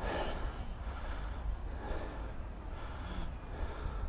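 Slow breaths close to the microphone, a soft rushing swell every second and a half or so, over a steady low wind rumble.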